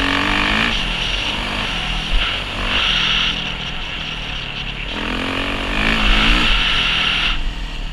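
Dirt bike engine running under load while riding, its pitch climbing several times as it revs up and dropping back between, as at gear changes.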